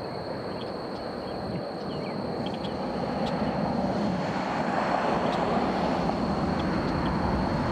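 Twin-engine jet airliner's engine noise from a distance, a broad rush that builds over the first few seconds and then holds steady and loud. A few faint chirps come early on.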